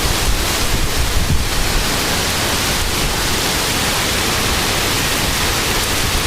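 Heavy rain and wind of a severe supercell thunderstorm, a loud, even hiss, with wind rumbling on the microphone.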